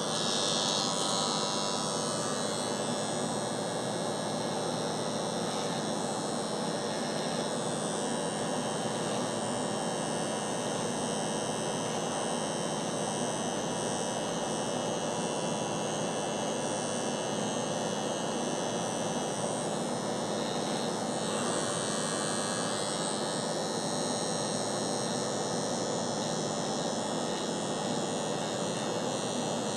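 Cordless electric hair trimmer running with a steady buzzing hum as its blade cuts along the hairline above the temple.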